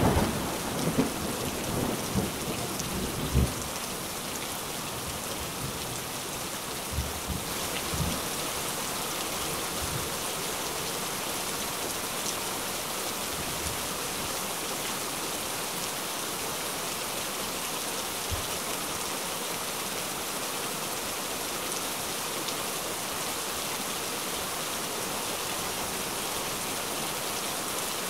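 Steady rain with thunder rumbling through the first few seconds, then a few fainter rumbles. The rain grows slightly louder about a quarter of the way in.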